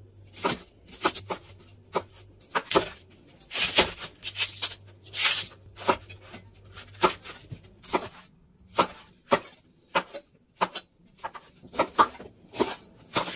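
Santoku knife chopping vegetables (onion, bell pepper) on a wooden cutting board: short, sharp knocks of the blade going through and striking the wood, unevenly spaced at about two a second.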